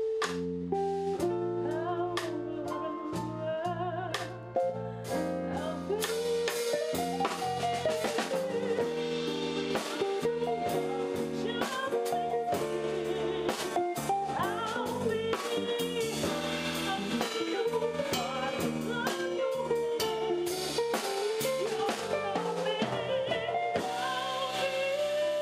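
Small jazz band playing live: drum kit, electric bass, guitar and keyboard, with a woman singing. The band plays alone for the first few seconds, and the voice comes in about six seconds in.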